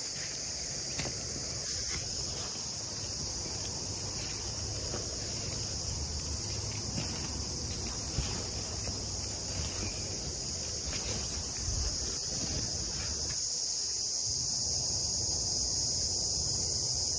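Insects, crickets or cicadas, chirring in a steady, unbroken high-pitched drone, with a few faint clicks of handling over it.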